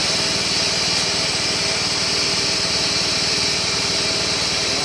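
FTPE-1200 air bubble film machine running steadily while making 30 mm bubble film, a continuous mechanical hum with a fast, even pulsing and a band of hiss.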